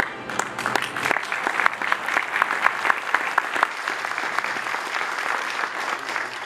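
Audience applauding, a steady spray of many hands clapping.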